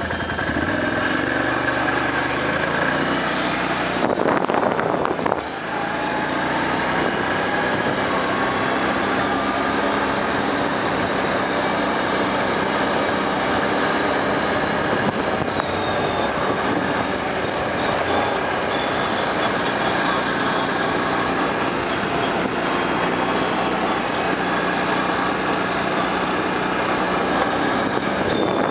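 ATV (four-wheeler) engine running as it rides along a dirt road, its pitch shifting with the throttle. A brief rush of noise cuts across it about four seconds in.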